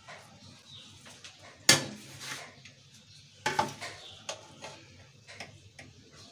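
Metal spoon clinking and scraping against the side of a metal cooking pot as cooked rice is stirred and loosened: a handful of sharp clinks, the loudest about a second and a half in and another about three and a half seconds in, with lighter taps between.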